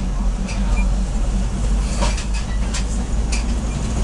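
SRT diesel railcar running slowly on the Maeklong line, heard from on board: a steady low engine rumble with irregular clicks and knocks from the wheels and track.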